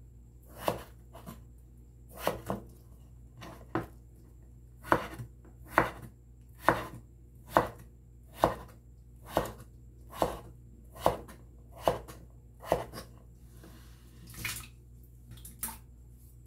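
A broad-bladed kitchen knife chopping peeled potato into small cubes on a wooden cutting board. Each stroke is a sharp knock of the blade on the board, settling into a steady pace of about one a second in the middle.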